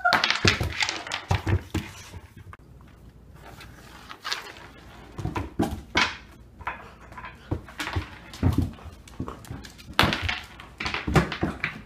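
A Border Collie–Australian Shepherd puppy playing with an ice cube on a hardwood floor: irregular sharp clatters and knocks as the cube is batted and skids across the boards, mixed with the scrabble of the puppy's claws and paws on the wood.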